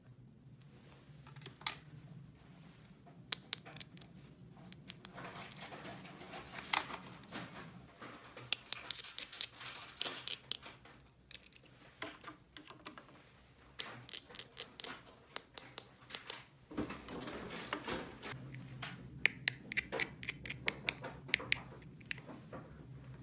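Small plastic toy pieces being handled and fitted together: irregular runs of sharp clicks and taps, with some scraping between them.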